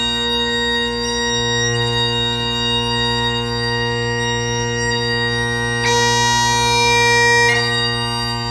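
Highland bagpipes playing: the drones sound a steady low chord under long held chanter notes. About six seconds in, the chanter goes up to a high note, holds it for about a second and a half, then drops back.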